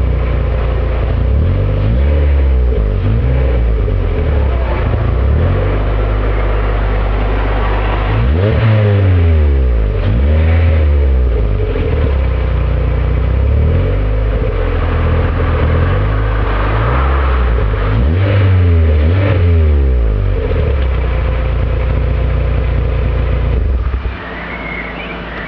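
VW Polo 6N with an ABT aftermarket rear silencer, revved in several blips with a steady idle between them. The engine note drops away near the end.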